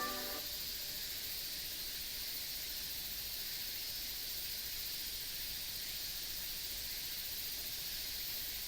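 The last note of a municipal disaster-prevention chime from an outdoor TOA loudspeaker cuts off within the first half-second, leaving a steady high hiss of outdoor ambience.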